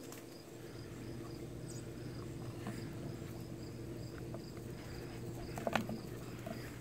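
Crickets chirping in an even, rapid pulse of about four chirps a second over a steady low hum, with one brief knock near the end.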